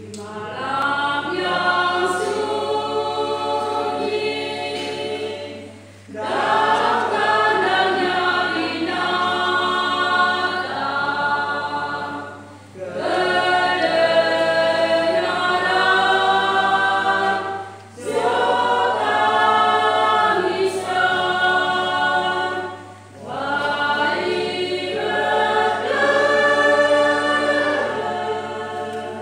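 Small church choir singing a hymn unaccompanied, in long phrases broken by short pauses for breath about every five to six seconds.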